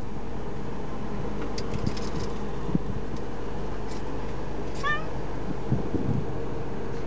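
Domestic cat meowing inside a slowly moving car, with one clear meow about five seconds in and fainter brief calls before it. The car's steady low cabin hum runs underneath.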